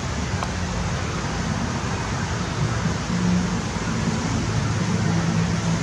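Steady road traffic noise, a continuous wash of passing cars.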